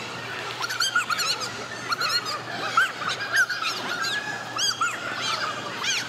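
Wrestling shoes squeaking on a wrestling mat as the wrestlers scramble: many short, sharp squeaks, several a second, over a steady low hum.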